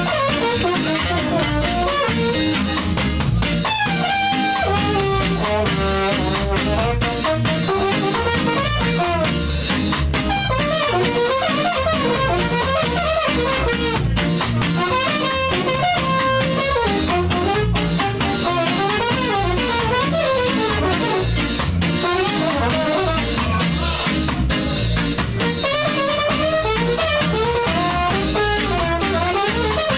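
Live ska band playing: a horn section of saxophones, trumpet and trombone carries the melody over drums, bass and guitar, at a steady loud level.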